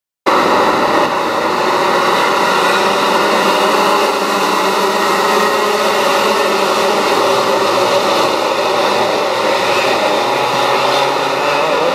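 Many ice-racing kart engines running together as the pack races, a dense, steady buzz that cuts in suddenly just after the start.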